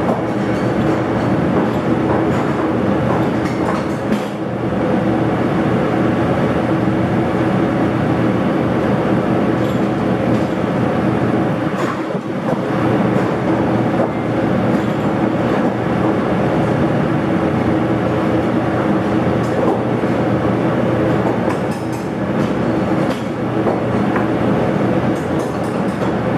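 Commercial kitchen exhaust hood fan running steadily: a loud, even noise with a constant hum.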